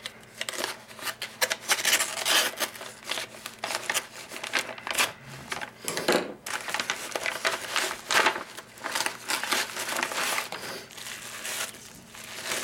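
Packaging of a mailer bag crinkling and rustling in irregular handfuls as it is opened to get at the book inside.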